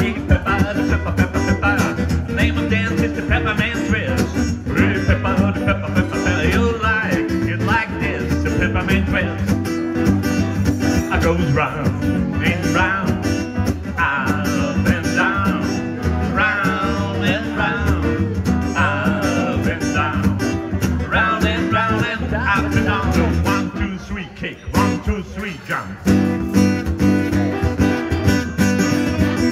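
Two guitars playing an upbeat song live: a steel-string acoustic guitar strumming the rhythm, and an electric archtop guitar through a small amp playing lead lines over it. The music thins out briefly about three-quarters of the way through, then comes back in full.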